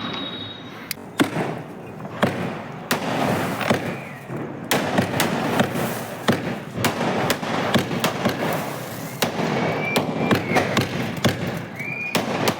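Sky shot aerial firework cake firing: a rapid run of sharp bangs and crackling from about a second in, with a couple of short whistles near the end.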